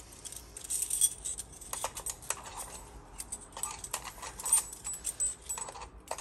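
Ilco metal key blanks clinking and jangling as they are slid one at a time onto a metal pegboard display hook, with many small irregular clicks.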